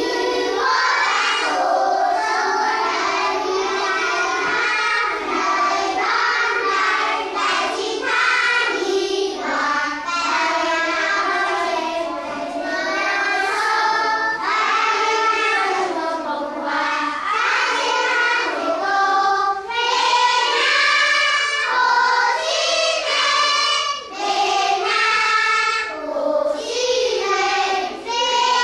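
A group of young schoolchildren singing a song together, steadily and fairly loudly.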